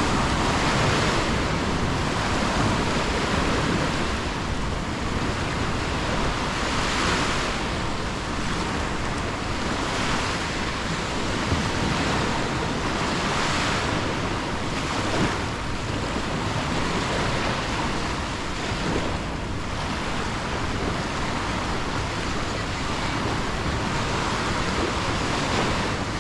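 Waves washing ashore: a steady rush of surf that swells every few seconds, with wind on the microphone.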